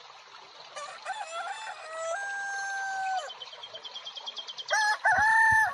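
A rooster crowing twice, each crow a long call ending on a held note, the second louder and starting near the end.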